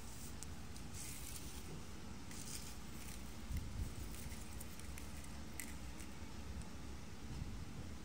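Faint, intermittent rustling and scratching of stiff sugar palm fibres being handled and brushed over a hard surface, with a soft low bump about three and a half seconds in.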